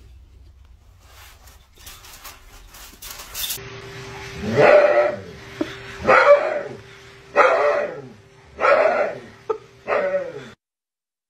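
A husky held on a grooming table gives a series of five loud, drawn-out cries, each rising and then falling in pitch, protesting at being handled. A steady hum runs underneath.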